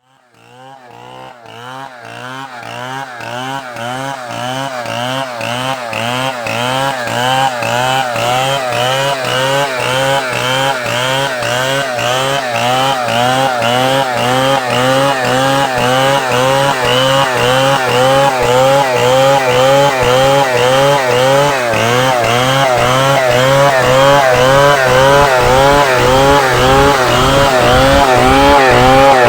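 Chainsaw engine running and cutting wood, its pitch wavering up and down in a steady rhythm about twice a second, growing gradually louder from very faint at the start.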